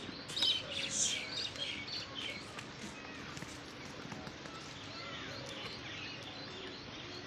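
Small birds chirping: many short, high tweets, busiest in the first few seconds and thinning after, over steady outdoor background noise.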